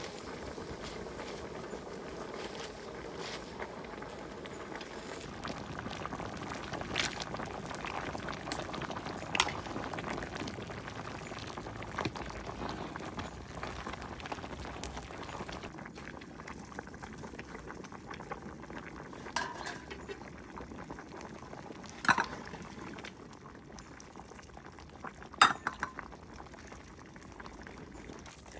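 Liquid bubbling steadily in a cooking pot, with a few sharp clinks scattered through and the loudest near the end.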